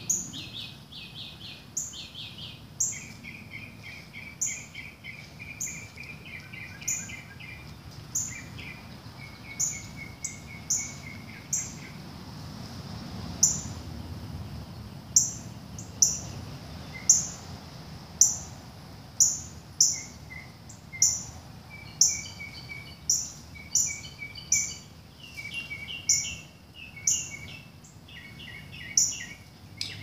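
Northern cardinals giving sharp chip alarm calls over and over, about one a second and louder in the second half, as they defend their nest. Runs of faster, lower chattering bird notes come in between.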